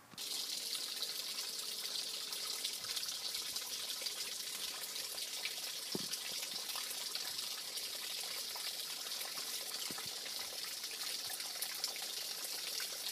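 Water trickling steadily in a small stone-lined garden pond and channel.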